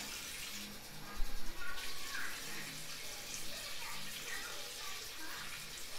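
Kitchen tap running and water splashing in a bowl as butter is rinsed and pressed with a silicone spatula, with a short burst of knocking and splashing just over a second in.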